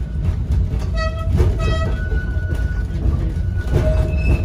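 Blackpool 1937 Brush railcoach tram running, a steady low rumble of its motors and wheels heard from inside the saloon. About a second in, two short high-pitched tones sound in quick succession.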